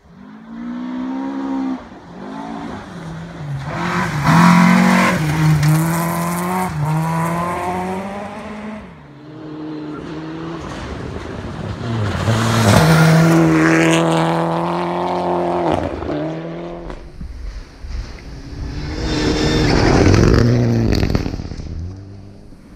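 Rally cars at full speed on a gravel forest stage, their engines revving up and down through gear changes. Three loud passes come in turn, each swelling and then fading.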